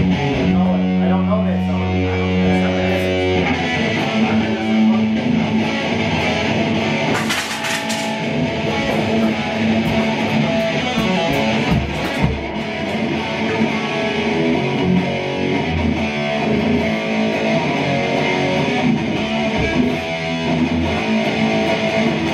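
Electric guitar played through an amplifier in a rock-style jam: held low notes in the first few seconds, then busier riffing and lead lines.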